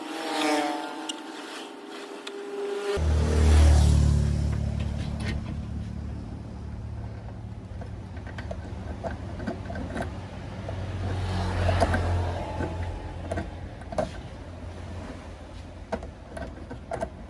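Low hum from an amplifier's loudspeaker that starts abruptly about three seconds in and carries on, peppered with irregular crackles and clicks; a short gliding pitched tone comes just before it.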